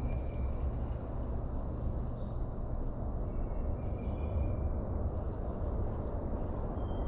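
Insects chirring steadily in a high, even tone, over a low rumble.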